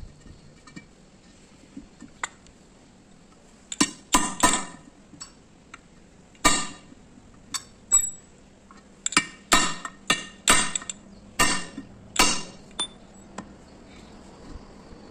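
Hammer blows on a steel drum-brake shoe from an Ashok Leyland bus: about a dozen sharp metallic clanks with a ringing tail, in irregular clusters, starting about four seconds in.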